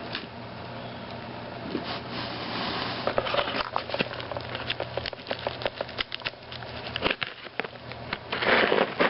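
Packaging being handled and pulled open: rustling and crackling, with a run of quick sharp clicks and crinkles from about two seconds in.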